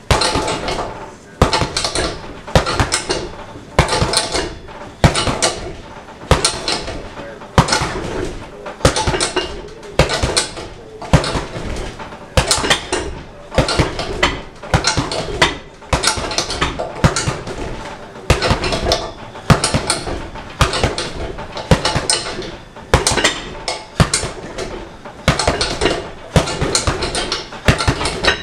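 Gloved punches landing on a heavy bag hung from a free-standing frame: sharp hits in uneven flurries, roughly one to two a second.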